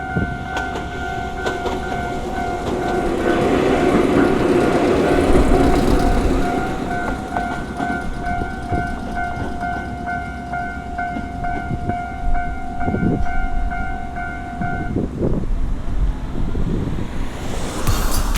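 A Japanese level crossing's electronic warning bell ringing in a steady rapid pulse while a Gakunan Railway train passes over the crossing, its wheels clacking over the rail joints. The bell stops about fifteen seconds in.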